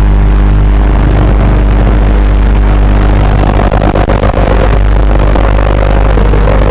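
Small racing quadcopter's electric motors and propellers running, heard loud and distorted through its onboard camera's microphone, with a steady hum. From about halfway in a whining tone comes in and slowly wavers lower as the throttle changes.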